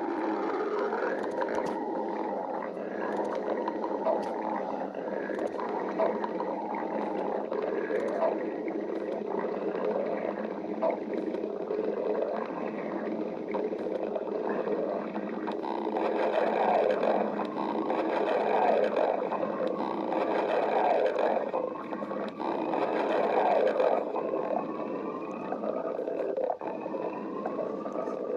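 A person's stomach growling and gurgling without a break: a steady rumble full of bubbly gurgles, with squeaky glides rising in pitch in the last few seconds.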